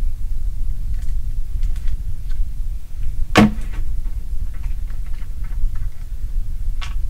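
A steady, deep low-frequency hum, the rumble that the recordist believes is human-made and not natural. About three and a half seconds in comes one sharp knock, with a fainter click near the end and a few faint ticks.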